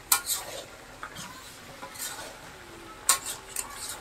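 A utensil scraping and clinking in a cooking pot as meat and potatoes are stirred: a couple of sharp strokes at the start and a few more about three seconds in.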